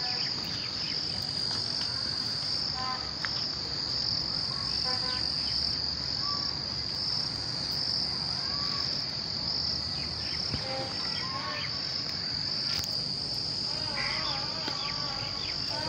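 Steady, high-pitched trilling of an insect chorus, such as crickets, running throughout, with a few faint short calls here and there.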